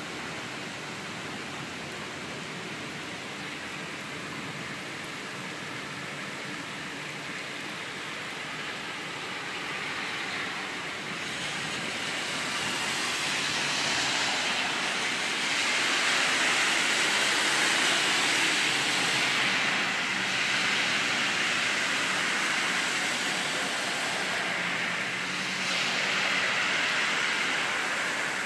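Steady heavy rain, with the hiss and spray of cars driving through standing floodwater on the street swelling up several times, loudest about halfway through.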